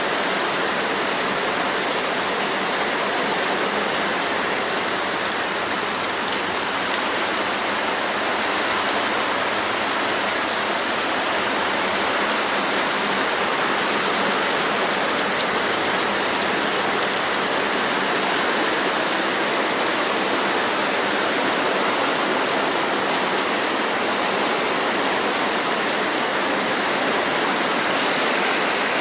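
Water rushing steadily out of an unplugged drain and pouring down into a ditch.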